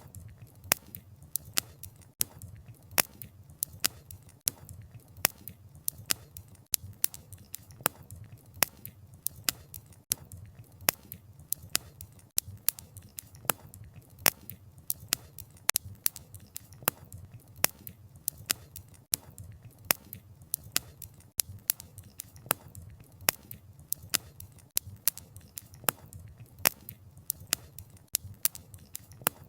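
Wood fire crackling: sharp, irregular pops and snaps several times a second over a low, steady rumble.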